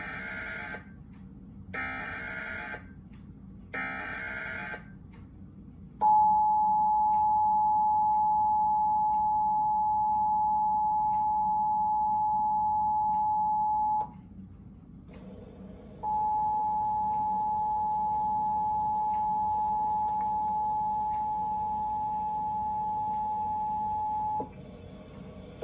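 Emergency Alert System test tones: three short bursts of SAME header data screech about two seconds apart, then the EAS two-tone attention signal (853 and 960 Hz together) held for about eight seconds. After a brief gap, a second, slightly quieter attention signal runs about eight seconds more on a duller, hissier feed.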